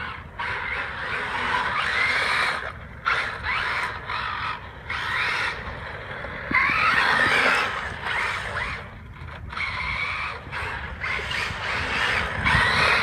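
Electric motor and gears of a Carisma M48 Porsche 959 micro RC car whining in bursts, the pitch rising and falling as the throttle is applied and let off. The owner thinks the gear mesh sounds a bit off.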